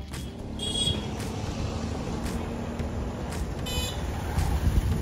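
Town traffic noise: a steady low rumble of vehicles, with two short, high-pitched horn beeps, one under a second in and one near four seconds.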